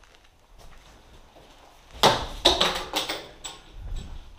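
A quick cluster of knocks and scrapes, about two seconds in, lasting around a second, then a softer thud.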